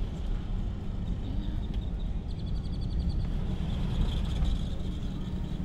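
Steady low rumble of road and engine noise inside a moving car's cabin. A faint, rapid high trill comes in about two seconds in and lasts under a second.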